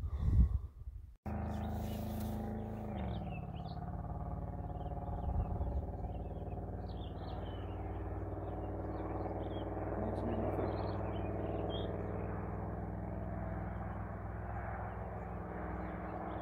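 A steady engine drone that starts abruptly about a second in, dips slightly in pitch soon after and then holds, with small birds chirping now and then.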